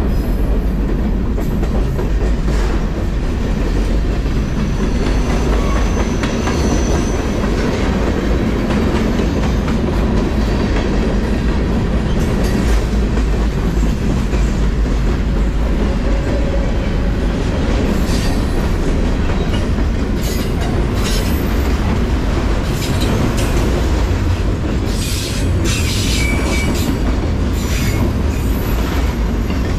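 A freight train's boxcars and autorack cars rolling past close by: a steady, loud rumble of steel wheels on rail, with scattered clicks that grow busier in the second half and a few brief high wheel squeals, around seven seconds in and again near the end.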